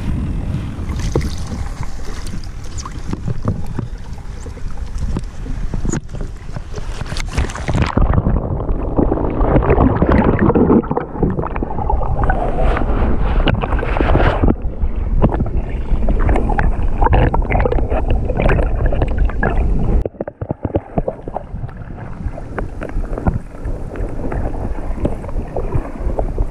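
Water splashing and wind buffeting an action camera at the water's surface. About eight seconds in, the sound turns muffled as the camera goes under, with churning and sloshing water. Near the end it comes back up into the splashing.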